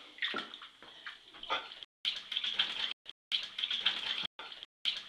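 Bathtub water splashing and sloshing as a squirrel paddles through it, in irregular splashes, with the sound cutting out to dead silence several times.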